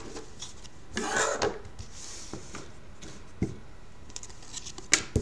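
A stack of stiff Panini Certified hockey cards being handled and slid against one another. There is a short rustle about a second in, then a few light clicks and taps, the sharpest near the end.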